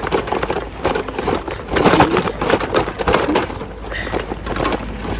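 Tyres crunching and rattling over a rough dirt trail on an uphill climb, an uneven run of crackles and knocks.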